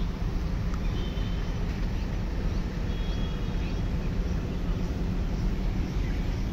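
Heavy diesel machinery engine running steadily, a continuous low rumble, with a few faint high chirps about one and three seconds in.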